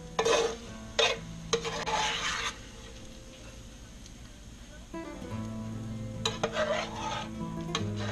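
Metal slotted spoon scraping and rubbing against a skillet as crispy bacon is scooped out of the grease, in a few strokes in the first couple of seconds and again from about six seconds in. Guitar music plays underneath.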